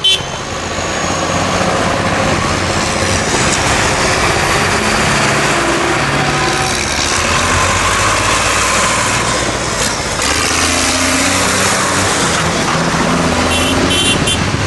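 Tractor engines running steadily as tractors drive along a road in convoy, with a few short beeps near the end.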